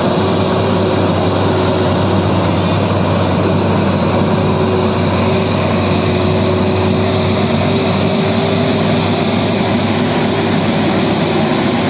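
Heavy diesel truck engines running under load as one truck tows another truck loaded with stone, a loud steady drone with a constant hum that does not change.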